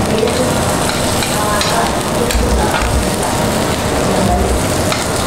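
Pork slices sizzling steadily on a perforated stainless grill plate over charcoal, with a few light clicks of metal tongs against the plate as the meat is turned.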